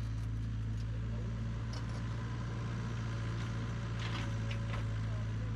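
Heavy construction machine's engine running steadily with a constant low hum, with a few faint clanks over it.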